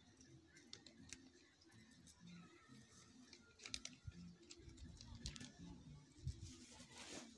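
Faint rustling and crackling of dry grass and weeds pulled by hand from loose soil, with a few soft scattered clicks.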